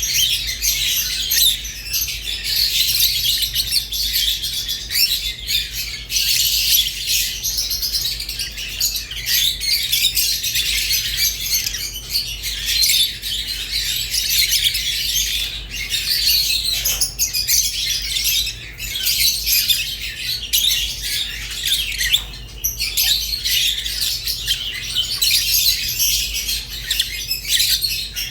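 Small pet parrots chirping, warbling and chattering continuously, a dense run of high twittering calls without pause.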